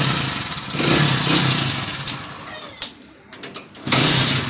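Hero Honda CD Deluxe's single-cylinder four-stroke engine running with a rhythmic rise and fall. It cuts out with a click about two seconds in, a second click follows, and it is running again just before the end. It now runs after a faulty CDI was replaced to cure a no-spark fault.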